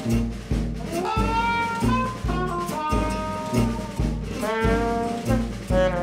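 Background jazz music: a brass melody of held and bending notes over a steady, pulsing bass beat.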